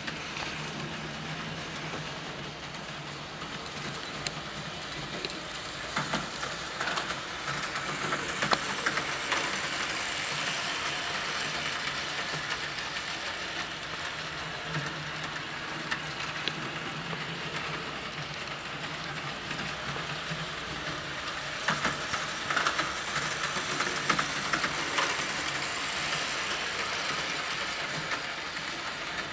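Märklin HO-scale model trains running on the layout: a steady electric motor hum and wheel noise on the track, with occasional sharp clicks.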